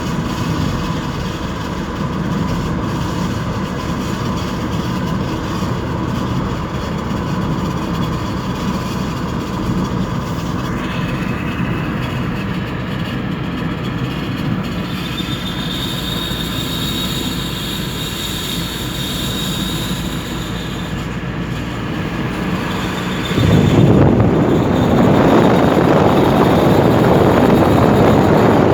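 Wheel screech from a Skoda or other VW Group car while driving, a high-pitched squeal over steady road and running noise. It is a common fault on VW Group cars of this generation. About two-thirds of the way in, a louder rushing noise swells up and covers it.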